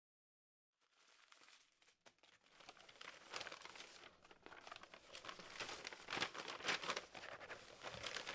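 Faint, irregular crackling and crinkling noise, many small clicks, fading in about a second in and growing louder.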